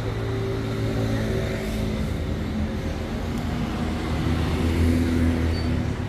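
Street traffic, with a motor vehicle's engine running at a steady low pitch that grows a little louder about five seconds in.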